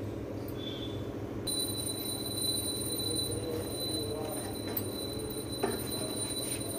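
Gas stove burner running steadily while a roti is puffed over the open flame. A thin, steady high-pitched whine joins about a second and a half in and holds on.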